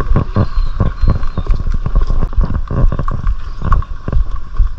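Mountain bike rattling and thudding over rough, roots-and-rock trail ground: a fast, irregular run of knocks and bumps from the frame, chain and mounted camera.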